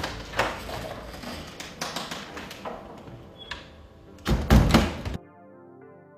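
A wooden door being handled: clicks, knocks and rubbing, then a few loud low thuds about four seconds in. After that the sound cuts off suddenly to soft music with held notes.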